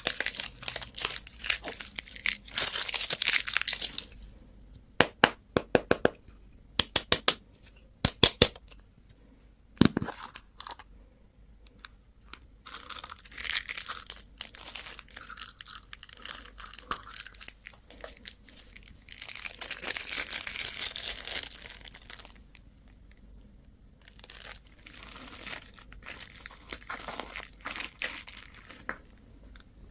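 Plastic candy and toy packaging crinkling and tearing as it is opened by hand, in bursts. A run of sharp clicks comes about five to eight seconds in, and a single knock near ten seconds.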